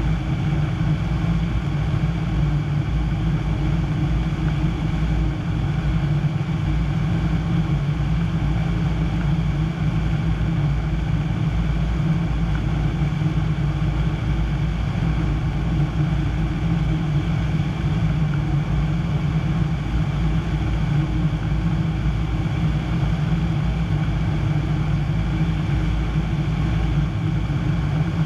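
Piper PA-25-235 Pawnee's Lycoming O-540 six-cylinder engine and propeller running steadily in flight, a constant unchanging drone heard from inside the cockpit.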